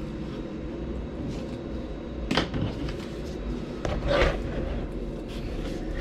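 Two loud knocks, about two seconds apart, over a steady low rumble.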